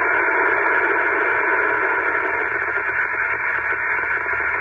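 Steady FM static hiss from a Yaesu FT-450D transceiver's speaker on the 10-meter FM band, with no voice coming through. The band is fluctuating, so the other station's signal is fading into noise.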